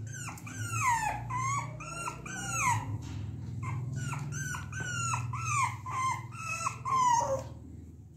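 French bulldog puppy whining in a quick series of short high cries, each falling in pitch, about two to three a second, with a brief pause about three seconds in. The cries stop about seven and a half seconds in, over a steady low hum.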